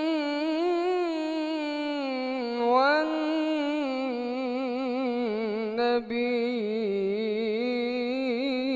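A male munshid's solo, unaccompanied voice holding a long ornamented melisma in an Egyptian ibtihal, the pitch wavering in rapid trills. He glides upward about three seconds in and takes a quick breath about six seconds in.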